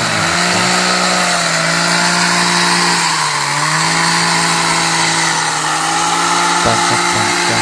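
Powered hedge trimmer running steadily while shearing hinoki cypress shrubs; its pitch sags briefly about three seconds in, then comes back up.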